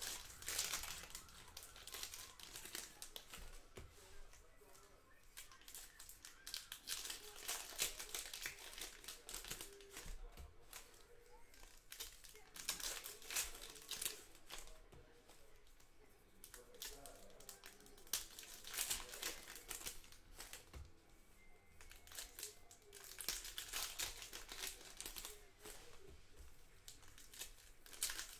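Foil wrappers of football trading-card packs being torn open and crinkled, in irregular bursts of crackling.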